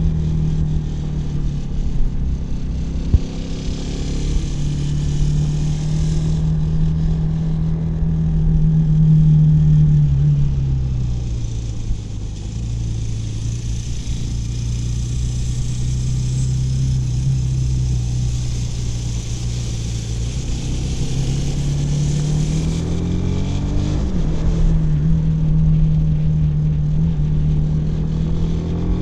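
Kawasaki W175's single-cylinder engine and exhaust under way, the pitch rising and falling with the throttle: the revs climb to about ten seconds in, drop back, run steady and lower for a while, then climb again near the end. A hiss comes and goes over the engine.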